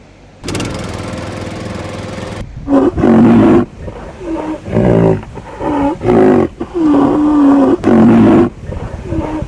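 A steady humming buzz for about two seconds, then a series of very loud roar-like calls, each under a second, whose pitch dips and bends.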